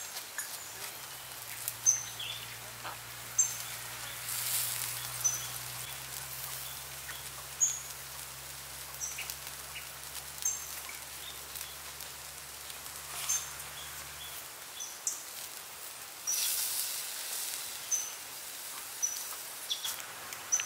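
Duck grilling on a wire rack over charcoal: a steady soft sizzle with scattered crackles, swelling into louder hissing twice as it is basted. Short high bird chirps come and go throughout.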